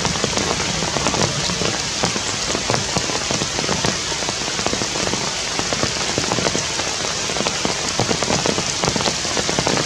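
Steady rain: an even hiss made of a dense patter of drops striking surfaces.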